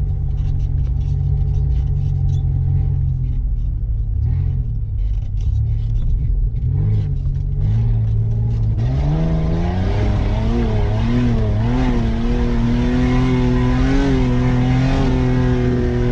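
Mitsubishi Pajero engine heard from inside the cabin while driving off-road: a steady low note that revs up about eight seconds in and is held at higher revs, wavering slightly, then drops off near the end.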